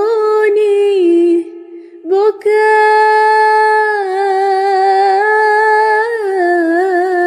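A woman singing an Arabic supplication (du'a): she ends the word 'عيوني' ('my eyes'), breaks off briefly, then holds one long, ornamented note with vibrato.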